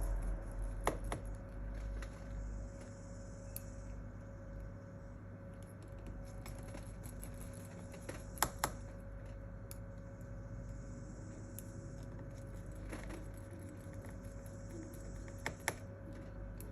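Scattered small clicks and taps of parts and tools being handled on an opened smartphone during repair, a few at a time with gaps between, over a faint steady hum.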